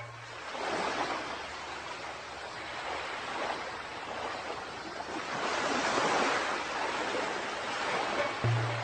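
Ocean waves washing in, the hiss of surf swelling and fading in slow surges, with a low held musical note at the start and again near the end.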